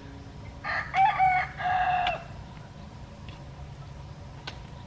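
A rooster crows once: one call of about a second and a half, in several joined parts, starting just over half a second in.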